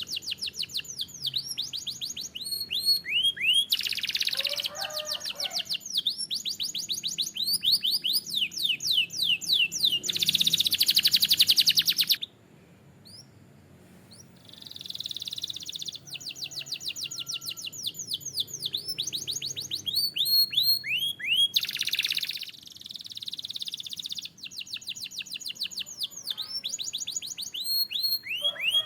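Canary singing: fast trills of rapidly repeated high chirps in runs of a few seconds each, with a short pause about twelve seconds in.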